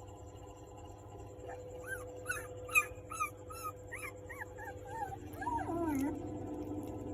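German Shepherd puppy whining: a run of short, high cries that rise and fall, about two or three a second, giving way to longer, lower sliding whines near the end, over a steady hum.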